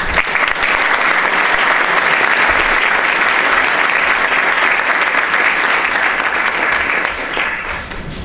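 Audience applauding, steady and dense, thinning out near the end.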